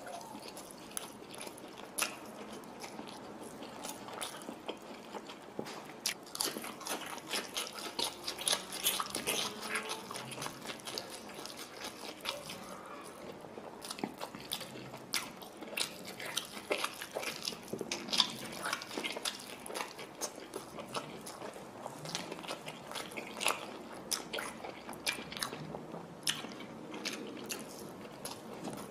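A person chewing breaded fish and fried rice close up, eaten by hand: a steady run of quick, sharp mouth clicks and crunches.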